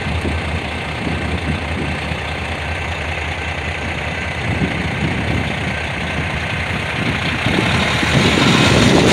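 Steady low engine rumble with road traffic noise, growing louder near the end as cars approach and cross the tracks.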